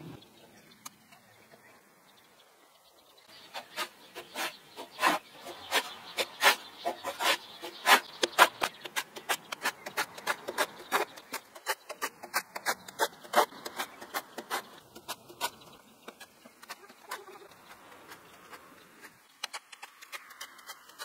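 Metal hand tool scraping and tapping over chicken wire wrapped around a clay tandoor pot: a long run of sharp, irregular clicks, several a second, starting a few seconds in and thinning out near the end.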